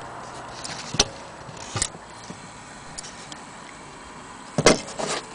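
Irregular handling knocks and clicks against a wooden clock case. There is a sharp knock about a second in, another just before two seconds, and a louder cluster of knocks near the end, over a steady background hiss.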